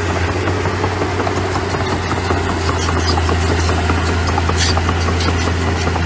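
Heavy diesel earthmoving machinery running steadily under a deep, even hum, with frequent short clanks and rattles throughout and a sharper hissing clank just before the end.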